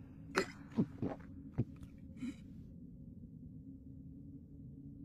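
Anime soundtrack effects: about five short, quick sounds that fall in pitch in the first two and a half seconds, over a low steady hum that carries on alone afterwards.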